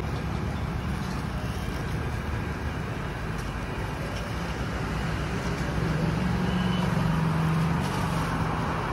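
Steady street traffic noise, with a vehicle's low engine drone coming up about six seconds in and fading near the end.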